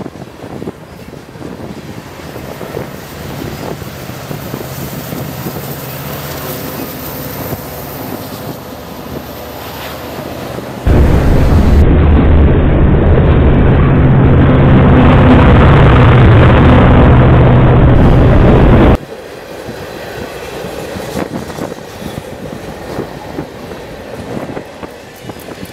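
Freight train of covered hopper cars rolling past, steel wheels running on the rails with a steady rumble and clatter. For about eight seconds in the middle it is heard much louder and closer, from right beside the wheels, and this starts and stops abruptly.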